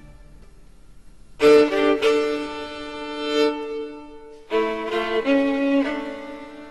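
Soundtrack music: a violin playing long held notes, coming in after a quiet first second and a half, with a second phrase about four and a half seconds in.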